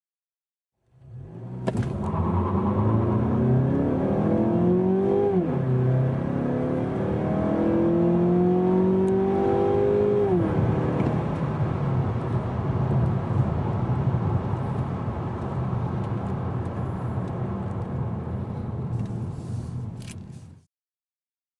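A 2014 Mazda6's 2.5-litre direct-injected SKYACTIV-G four-cylinder at full throttle, heard inside the cabin. The engine note climbs, drops at an upshift about five seconds in, climbs again and drops at the next shift about ten seconds in. After that comes steadier engine and road noise as the car slows, cut off suddenly near the end.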